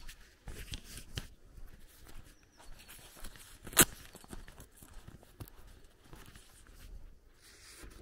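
Footsteps on a dirt lane with close handling noise, and one sharp click a little before the midpoint as something is handled right at the microphone.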